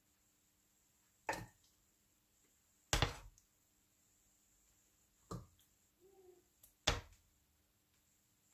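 Metal ladle clinking against a stainless steel pot and glass jars while hot strawberry jam is ladled into the jars: four sharp, separate clinks spaced a second and a half to two seconds apart, the second one the loudest.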